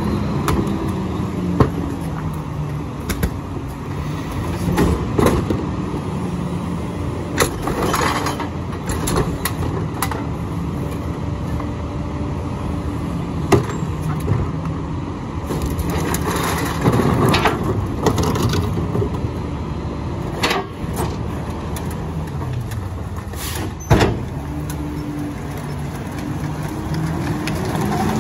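Split McNeilus rear-loader garbage truck's diesel engine running, rising and falling in pitch as the packer cycles, with repeated sharp bangs and knocks as carts are banged against the hopper and trash drops in; the loudest bang comes near the end.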